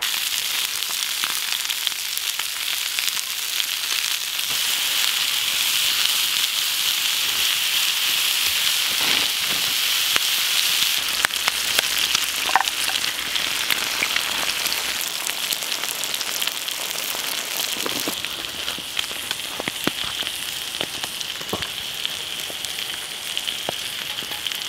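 Breakfast of sausages, bacon and mushrooms frying in two pans over campfire embers: a steady sizzle with scattered pops and spits of fat.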